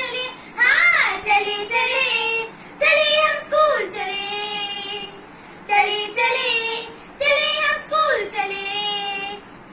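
A young girl singing solo and unaccompanied, in phrases of long held notes with short breaths between them.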